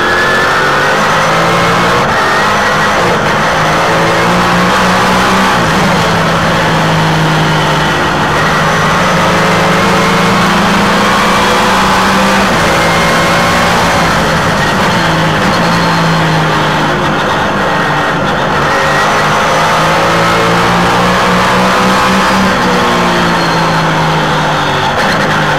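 Race car engine running at full racing effort, heard from the car's own onboard camera. Its pitch climbs through long pulls and drops back several times as the car accelerates along straights and slows for corners.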